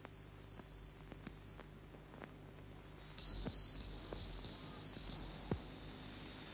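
A high, steady insect trill, faint at first and then much louder from about three seconds in.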